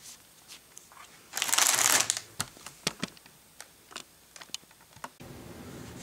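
Paper instruction booklets being handled: a loud rustle of sliding paper about a second and a half in, then scattered light clicks and taps.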